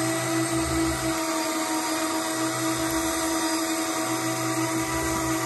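Electric fishing reel's motor whining steadily at an even pitch as it winds the line and rig up from the bottom.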